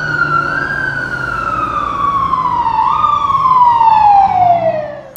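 Fire engine siren wailing, its pitch falling slowly with a brief rise about three seconds in, then dying away near the end.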